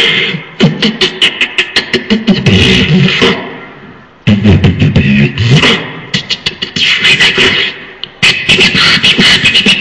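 Beatboxing: drum sounds made with the mouth and voice, fast runs of clicks and snare-like hits over deep kick-drum booms. The beat fades out a little before halfway, then comes back sharply, with another sharp restart near the end.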